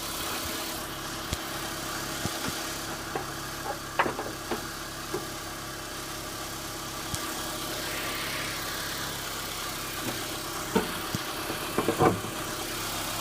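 Honda Civic engine idling steadily with sharp knocks at irregular intervals, the loudest about four seconds in and near the end. The owner cannot tell whether it is rod knock or valve lifters chattering; the noise began after an oil change.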